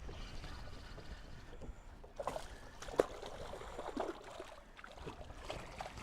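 Water lapping and splashing against the side of a small fishing boat, with scattered small knocks and one sharp click about three seconds in.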